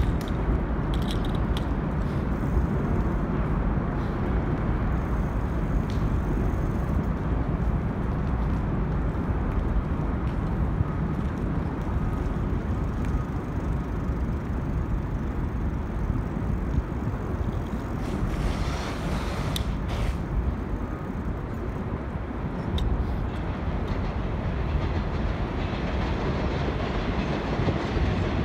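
Elevated subway train running on the tracks, a steady low rumble.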